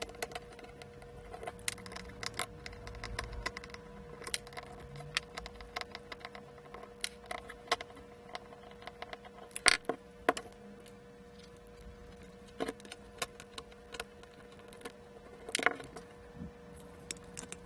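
Small scattered clicks, taps and light metallic clinks of a screwdriver working screws out of a circuit board and of the loosened screws and board being handled, the sharpest about ten seconds in and near the end. A faint steady hum sits underneath.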